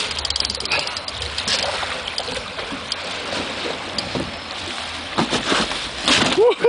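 Water splashing and sloshing at the side of a boat as a large wels catfish thrashes while being gripped by the mouth and hauled aboard, with a few sharp knocks near the end.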